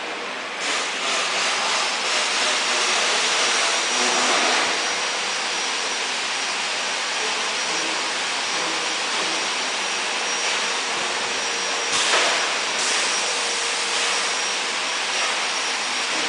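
Steady, hissing factory-floor machinery noise with a thin, high, steady whine running through it. There is a single sharp knock about twelve seconds in.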